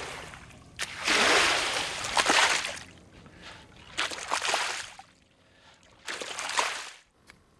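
Long wooden pole pushed through the shallow brine of a salt pan: three strokes of splashing, stirred water, each a second or two long, with short quiet gaps between them.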